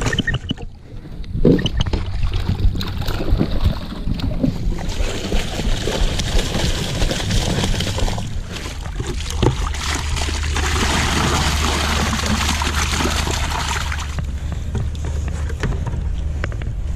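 Water, carrying stocked trout, poured from a plastic five-gallon bucket into a shallow stream: splashing and sloshing, then a louder, steady gush for about three seconds a little past the middle. A few knocks of the bucket being handled are heard early on.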